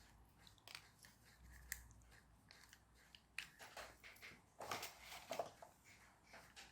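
Faint, scattered small clicks and scrapes of plastic toy-car parts being handled and worked at by hand, with a small cluster of them a little past the middle.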